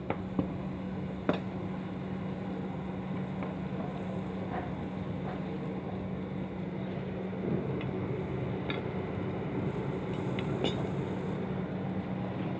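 A steady mechanical hum, with a few light, sharp knocks now and then.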